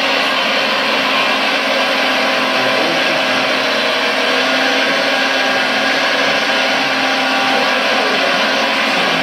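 Scale RC Liebherr R956 excavator by Premacon working its boom and bucket: a steady whirr from its hydraulic pump and motors, blended with the model's sound-module engine noise.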